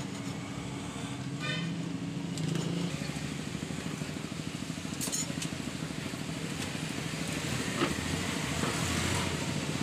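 Steady road-traffic noise with a motor vehicle engine running, mixed with scraping and light clinks as a hand file works the edges of a stack of lead battery plates and the stack is tapped square on a steel block.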